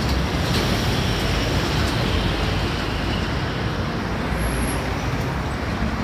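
Steady, loud rumble of traffic, even throughout with no distinct events.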